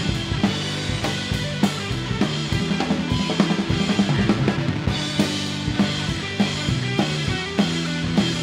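Live band playing a blues instrumental passage: a drum kit keeps a steady beat of bass drum and snare under bass guitar and electric guitar.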